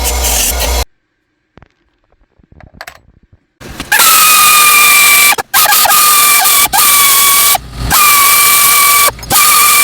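Rebuilt coil tattoo machine running with a loud, steady, high-pitched buzz, starting about four seconds in and cutting out briefly several times as it is switched off and on.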